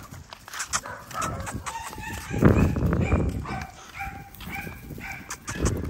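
XL pit bull puppies whining and yipping, a string of short high calls in the second half. A low rumble comes about halfway through.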